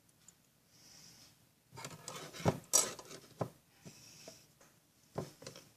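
Borax slime being kneaded by hand in a bowl: irregular wet squelches and sharp clicks, busiest from about two to three and a half seconds in and again near the end.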